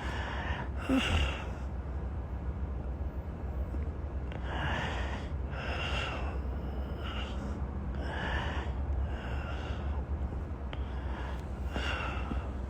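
A man with a cold breathing audibly, a breath every second or two, over a low steady hum.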